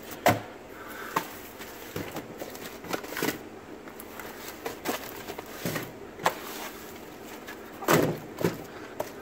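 Handling noise: scattered knocks and clicks as shrink-wrapped boxes are moved and a glass cabinet door is handled, with a louder cluster of knocks near the end.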